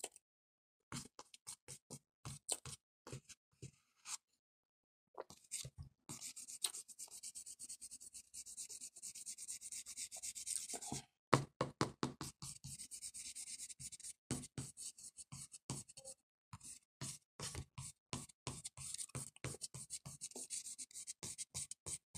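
Close-up mouth sounds of chewing a mouthful of dry cornstarch powder: rapid, squeaky, crackling crunches. They start about a second in, pause briefly at about four seconds, and are loudest a little past the middle.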